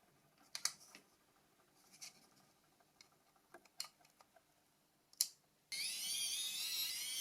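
Scattered small clicks and taps of a Nokia 6233 mobile phone's plastic body shell and parts being handled and unclipped during disassembly. Near the end a louder, high, wavering sound starts suddenly and holds.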